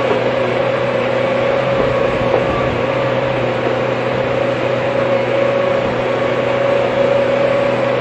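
Hydraulic excavator running steadily, a constant engine drone with a steady hum above it.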